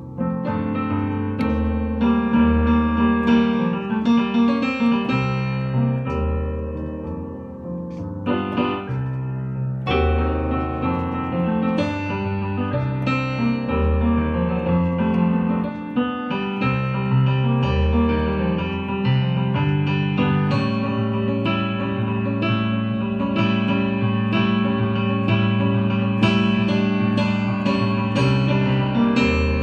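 Digital keyboard played with both hands: chords over deep bass notes, each held about a second.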